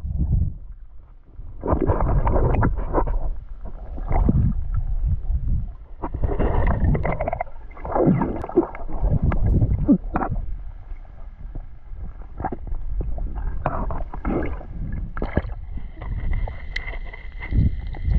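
Muffled underwater water noise from an action camera held below the surface: sloshing and bubbling in irregular surges as a swimmer moves through the water.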